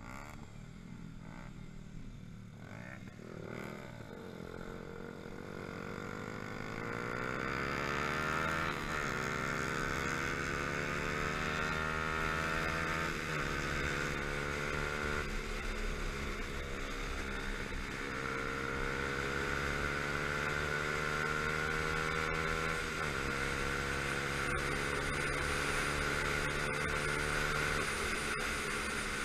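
Yamaha YZF-R125 single-cylinder four-stroke engine pulling up through the gears, its note climbing and dropping back at each upshift, then holding steady at cruising speed. Steady wind rush over the helmet-mounted microphone grows as the bike speeds up.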